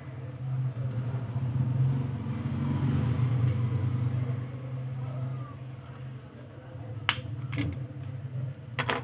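A low steady hum, louder for the first few seconds and then easing. A few sharp plastic clicks come near the end as the pulse oximeter's battery cover is pried off.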